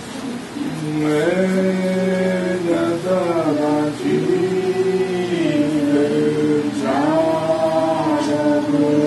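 A group of mourners singing together unaccompanied, in several voices that hold long notes. The singing starts about a second in.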